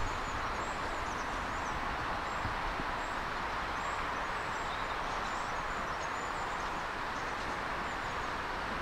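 Steady outdoor rushing background with small birds chirping, as a GWR autocoach train drifts in slowly and faintly, the loudness never rising. A short knock right at the start.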